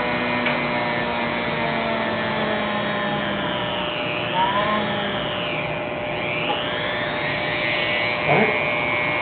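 Corded Craftsman rotary tool running at speed with a small drill bit, boring a small hole into a carved wooden figure: a steady high motor whine whose pitch sags and rises a couple of times around the middle.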